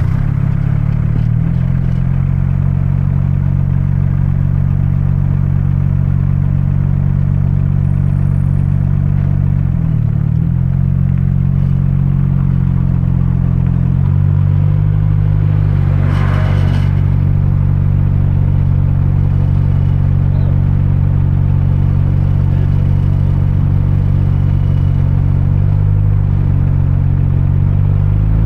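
Audi A4 with an aftermarket sport exhaust idling steadily just after being started, a deep even exhaust note; a short clatter a little past halfway.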